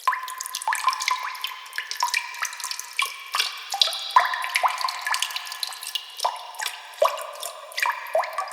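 Water drops dripping: an irregular run of short, bright plinks, several a second, each rising quickly in pitch.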